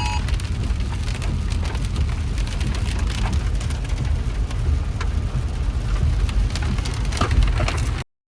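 Heavy storm rain pouring down, with wind buffeting the microphone and scattered sharp drop impacts. A two-tone emergency alert beep stops just at the start, and all sound cuts off suddenly about eight seconds in.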